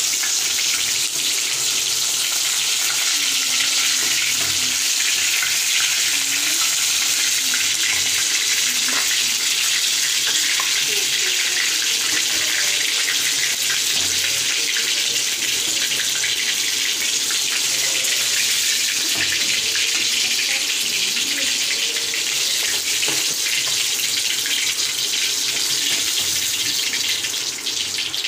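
Batter-marinated fish frying in hot oil in a pan: a steady sizzling hiss with faint crackles and occasional light clicks of a steel spoon, dropping off near the end.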